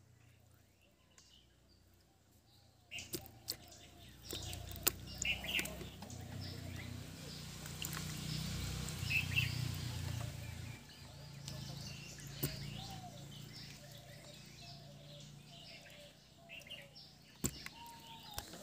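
Outdoor birds chirping with short calls throughout, over a low motor hum that grows louder for several seconds and then fades away, as of an engine passing. A few sharp clicks stand out, the loudest near the end.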